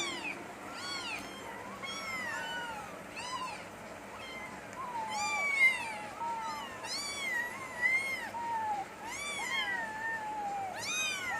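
Cat meowing over and over in high, thin calls that rise and fall in pitch, about one a second, some of them overlapping.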